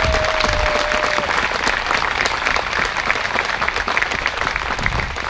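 Outdoor crowd applauding, many hands clapping at once, with a single long held note sounding over it at the start; the clapping thins out near the end.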